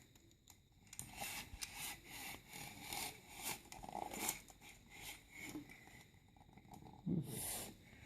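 Faint scraping and rustling as a braided elastic belt and a measuring tape are handled to measure the belt's length. The sounds are short and scattered, with a somewhat louder one near the end.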